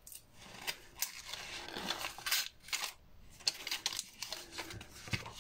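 Paper and the release backing of double-sided tape being handled and peeled, a run of crackling rustles and small clicks, with a sharper click near the end.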